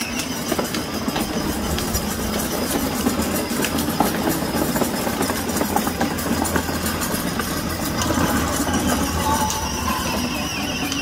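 Battery-powered ride-on toy Jeep driving over paving tiles: a steady rolling rattle and clatter of its plastic wheels over the tile joints, with the hum of its electric drive motors.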